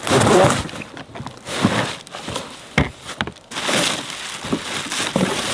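Plastic bubble wrap rustling and crinkling in irregular bursts as it is pulled out of a cardboard box, with a few sharp knocks.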